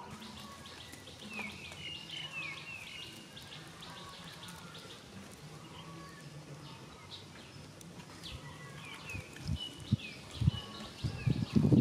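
Small birds chirping and tweeting over a faint outdoor background. From about nine seconds in come dull knocks, louder and more frequent near the end, from a stick knocking at the cooking fire.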